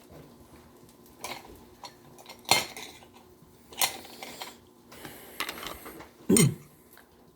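Cutlery clinking and tapping against dishes at a meal, a few separate sharp clicks, the loudest about two and a half seconds in. Near the end comes a short low sound that drops in pitch.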